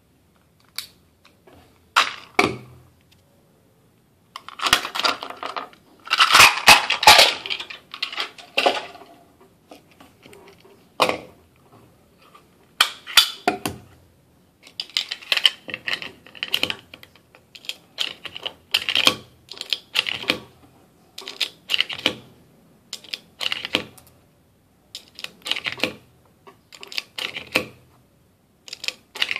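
Metal clicks and clatter from an H&K HK4 pistol being handled and worked by hand against a hard surface. A denser rattle comes about five to nine seconds in, then quick clusters of clicks about once a second.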